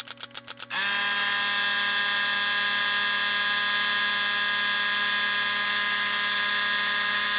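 A last quick run of brad nailer shots, then the DeWalt DWFP55126 6-gallon pancake compressor's motor kicks on under a second in and runs steadily, refilling the tank after its pressure has been drawn down by about 55 brads.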